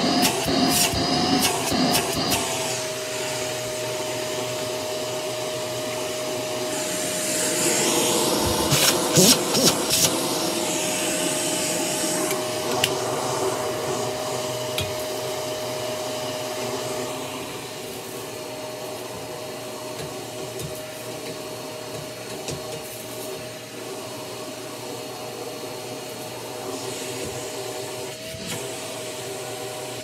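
Bagless upright vacuum cleaner running with a steady motor hum and a constant whine. Its pitch wavers briefly at the start and near the end, and a few sharp clicks or knocks come near the start and about eight to ten seconds in.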